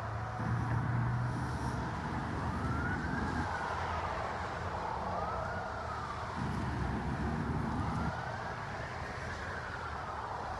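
Emergency-vehicle siren wailing in the distance, its pitch rising and falling in three slow sweeps, over steady outdoor background noise.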